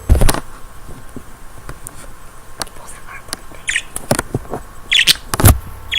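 Handling knocks, taps and clicks, with a loud thump at the start and another near the end, and a pet bird giving two short chirps between them.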